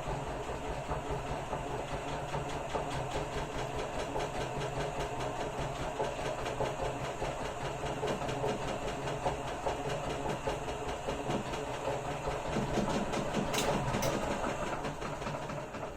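Motor-driven radial honey extractor spinning loaded frames: a steady motor hum with a fast, continuous rattle from the drum. Two sharp clicks come about three quarters of the way through.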